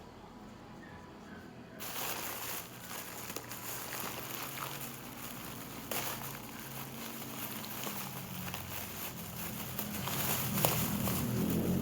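Soft rustling and crinkling with many scattered light clicks, starting about two seconds in.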